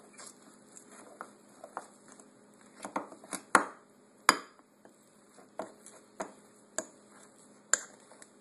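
A fork clinking and scraping against a bowl while stirring thick, dry batter: irregular light clicks, with two louder knocks a little past the middle.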